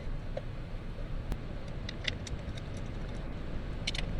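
Scattered light metallic clicks and ticks from hand tools while the three bolts of an automatic transmission oil filter are fitted, a small cluster of them near the end, over a steady low rumble.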